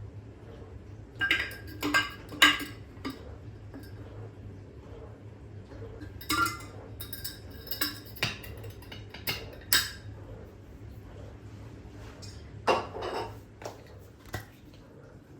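Dishes and metal utensils clinking and clattering in three short bouts of sharp knocks, over a low steady hum.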